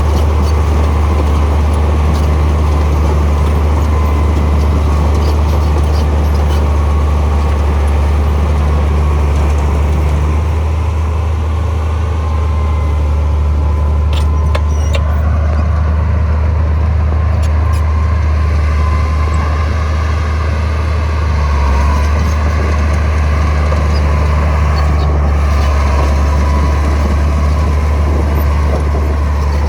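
Heavy diesel engine of earthmoving machinery running steadily, a deep, even low drone, with a few faint clicks around the middle.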